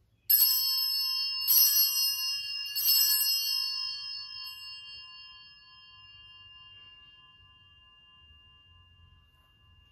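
Altar bell (sanctus bell) struck three times, about a second and a half apart, each strike leaving a long ringing tone that slowly dies away. It marks the elevation of the consecrated bread just after the words of institution over the bread.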